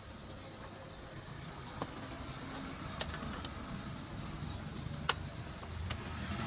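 Plastic clicks and taps from a Sony Walkman portable CD player being handled: its lid is opened and a CD is lifted off the spindle. The sharpest click comes about five seconds in, over a low steady rumble.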